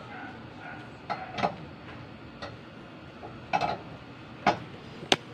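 Scattered sharp clicks and knocks, about six in all, from the air cleaner being fitted back onto the Nissan GA16 engine, some with a brief metallic ring.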